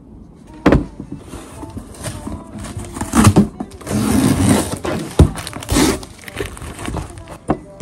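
A cardboard parcel being handled and opened by hand: a sharp knock about a second in, then cardboard rustling and scraping for a few seconds, with further knocks.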